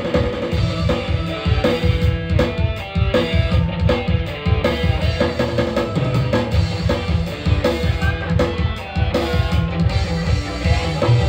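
Live band music with an electronic keyboard, electric guitar and hand drums playing a steady, driving beat.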